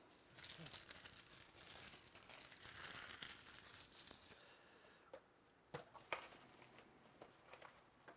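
Faint crinkling and tearing of plastic card packaging for about four seconds, followed by a few soft clicks.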